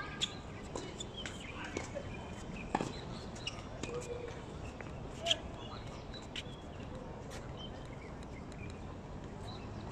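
Open-air tennis court ambience: a steady background with faint distant voices, a few short bird chirps, and several sharp knocks scattered through, the loudest about five seconds in.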